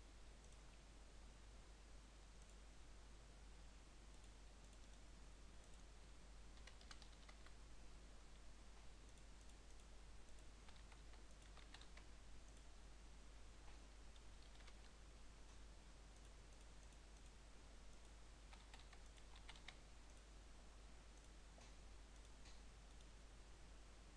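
Near silence: faint room hiss with a few scattered clusters of quiet computer keyboard keystrokes and mouse clicks.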